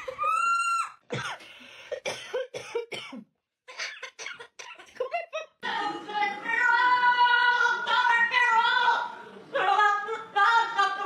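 A parrot vocalizing. First comes a short pitched call, then a run of short rasping sounds, then a longer call held on several steady pitches that breaks into short notes near the end.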